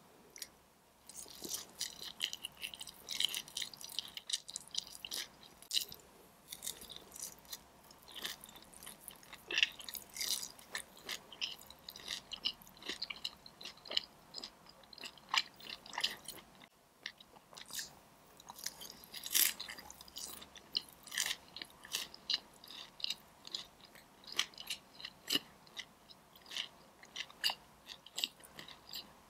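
Close-miked chewing of crispy Korean fried chicken: a steady, irregular run of short crunches.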